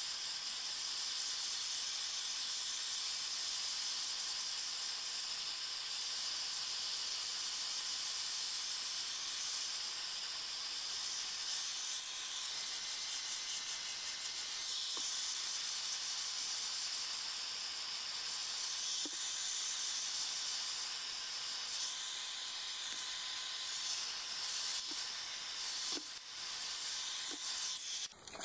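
Heat gun running on its high setting, a steady hiss of blowing hot air as it shrinks wrap over a battery pack. Near the end the sound wavers and drops, with a few faint clicks.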